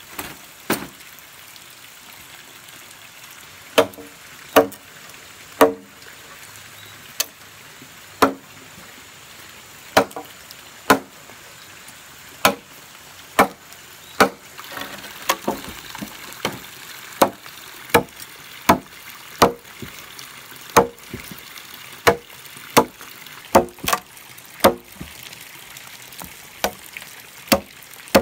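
Bamboo being chopped with a blade: a long run of sharp, irregular strikes, roughly one a second and coming faster in the second half, several with a short pitched ring.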